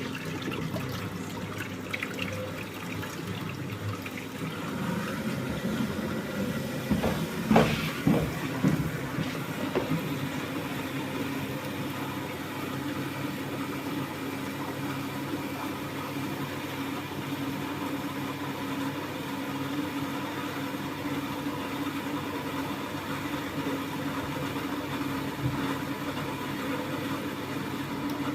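Thomson washing machine running a wash: a steady motor hum with water moving in the drum, and a short cluster of louder knocks and splashes about seven to nine seconds in.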